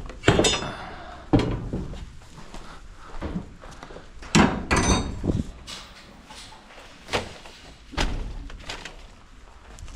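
A series of sharp knocks and thuds, irregular and a second or more apart, with a couple of brief high squeaks among them.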